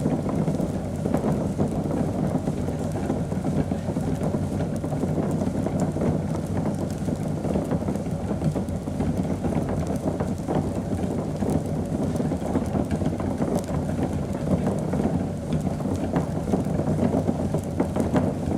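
Liquid bubbling at a steady boil: a continuous, dense, low bubbling with no pause.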